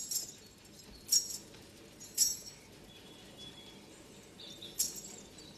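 Small bells jingling in single shakes, three times about a second or more apart, over a faint steady hiss.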